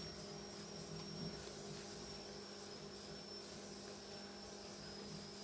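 Faint steady electrical hum with a thin high-pitched whine above it: room tone.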